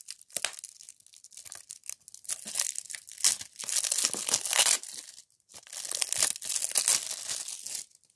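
Clear plastic shrink-wrap being torn and peeled off a DVD case, crackling and crinkling in bursts, with a short pause a little after five seconds in.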